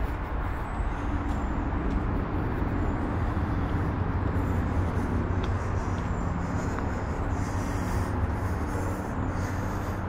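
Steady low rumble of road traffic, an even hum with no single vehicle standing out.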